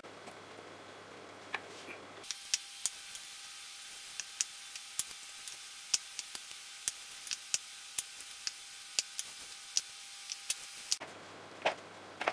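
A spoon tapping and clicking as zucchini batter is portioned into silicone cupcake moulds on a baking tray: short, sharp, irregular ticks, about two a second.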